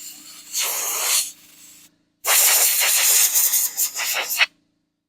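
Compressed-air blow gun hissing in bursts while a tractor's air filter element is blown clean: a short blast about half a second in, then a longer one from about two seconds in. A faint steady low hum sits underneath at first.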